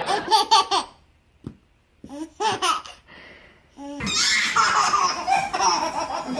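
Laughter in short bursts, breaking off twice and coming back longer and fuller near the end.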